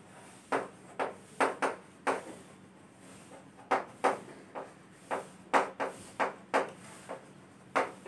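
Chalk writing on a green chalkboard: an irregular series of sharp taps and short scratches as each letter stroke is made, about a dozen strokes, some in quick pairs.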